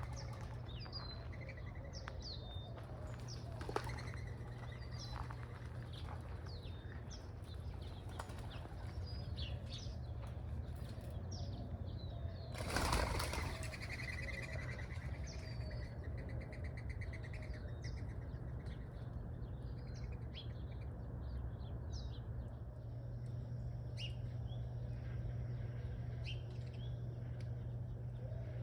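Wild birds chirping with short, high calls scattered throughout. About halfway through there is a brief, loud flurry of bird wings flapping as a bird takes off. A steady low hum runs underneath.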